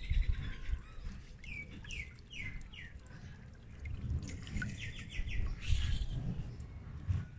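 Small birds chirping, short downward-sweeping notes repeated in quick series, over the faint splash of a small fountain jet falling back into a water jar, with low rumbles underneath.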